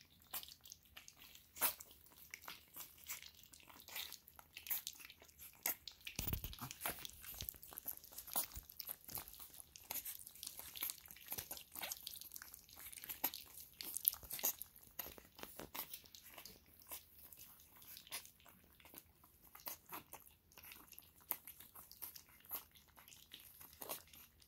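Several young puppies eating soft, soupy mush from a shallow stainless steel feeding pan. Their lapping and slurping make a steady run of small wet clicks and smacks.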